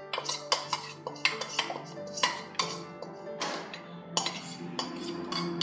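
A steel spoon scrapes and clinks against a steel bowl as a milk-and-semolina batter is poured out of it into a steel pot, giving repeated sharp metal clinks. Background music with held notes plays underneath.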